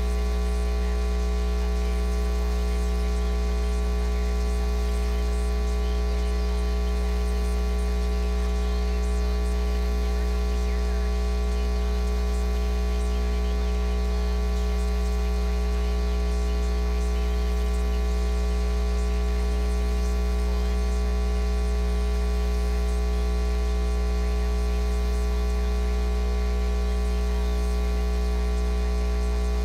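Steady electrical mains hum: a loud, unchanging low drone with a ladder of fainter steady tones above it and a faint crackle of static.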